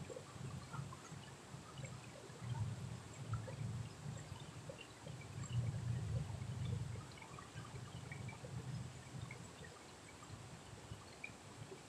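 River water rushing over rocks in a steady flow, with a low rumble that swells and fades.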